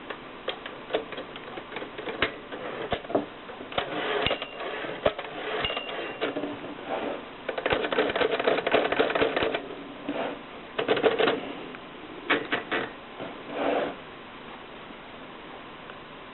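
Typewriter keys clacking in irregular bursts, from scattered single strokes to rapid runs of typing, with two brief high pings in the middle; the typing stops about two seconds before the end.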